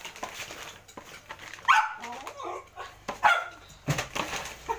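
A small white dog barking in a few short, sharp yaps.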